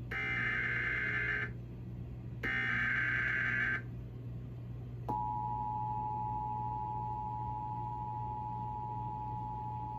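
Emergency Alert System SAME header: the last two of its three screeching digital data bursts, each just over a second long with about a second between them. About five seconds in, the steady two-tone EAS attention signal (853 and 960 Hz together) starts and holds. Together they mark the start of an emergency alert activation, here a National Weather Service severe thunderstorm warning.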